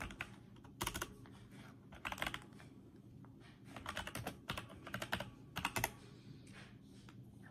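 Typing: several short bursts of light clicks with pauses between.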